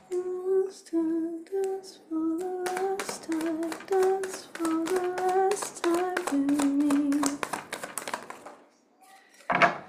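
A woman sings a wordless tune under her breath, a run of short notes ending on a longer, lower held note, while shuffling a deck of tarot cards in her hands, the cards making a rapid patter of clicks. The shuffling stops shortly before a single sharp click near the end.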